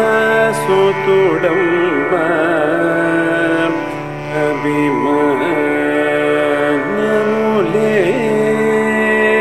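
A man singing a Carnatic classical melody, his voice sliding and wavering through ornamented notes over a steady drone.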